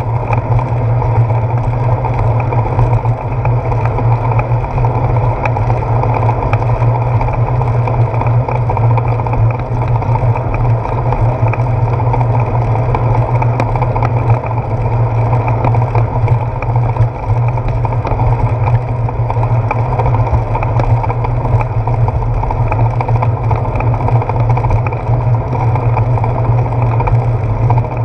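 Steady rumble of wind and road vibration on a handlebar-mounted GoPro Hero 4 while riding a bicycle along a paved path.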